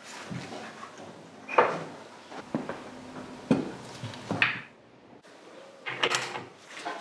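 Metal tools and motorcycle parts being handled on a workbench: several separate sharp clanks and knocks about a second apart, then a short cluster of quick clicks about six seconds in.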